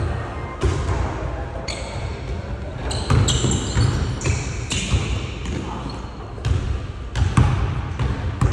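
A basketball being dribbled on a court during one-on-one play, a string of bounces, with short high squeaks of sneakers on the floor, most about three to four seconds in.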